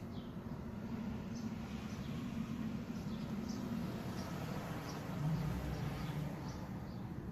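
Small birds chirping, short high chirps repeating about once a second over a steady low rumble.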